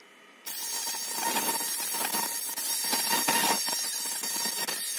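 Laser cutting machine's beam firing on a metal plate, starting abruptly about half a second in: a harsh, crackling hiss with a steady high whine running through it.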